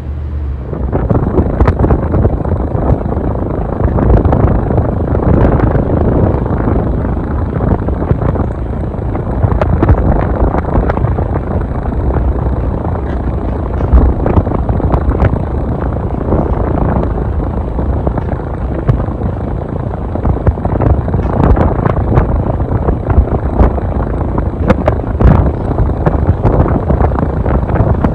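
Casablanca Wailea ceiling fan running, its blade wash buffeting the microphone as a loud, gusty wind rumble that swells about half a second in.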